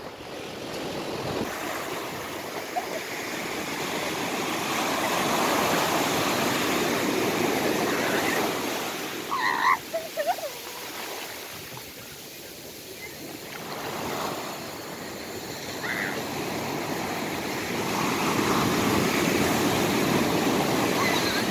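Surf breaking on a sandy beach, the wash of the waves swelling and fading twice. A few short cries rise above it about halfway through.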